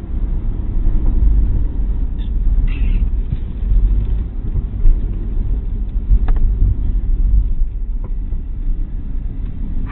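Opel Corsa's engine and road noise inside the cabin at speed: a steady, heavy low rumble, with a few brief knocks and a thump midway.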